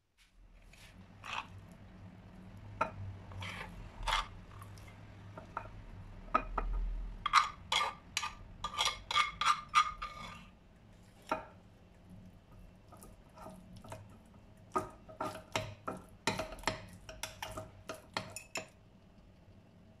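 Metal spoon clinking and scraping against a ceramic baking dish as a thick mixture is stirred and spread, with sharp ringing clinks that come thickest about a third of the way in and again near the end. A faint low hum runs underneath.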